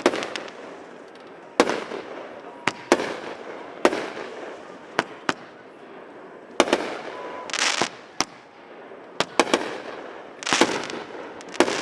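Aerial fireworks display: sharp bangs of bursting shells about every second, some in quick pairs and triples, with short spells of crackle around the middle and near the end.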